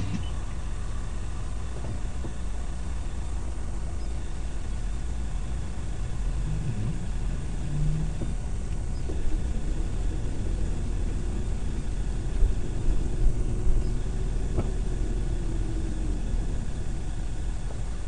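Steady low rumble of a car's engine and tyres heard from inside the moving car's cabin through a dashcam microphone, with a few louder bumps about two-thirds of the way through.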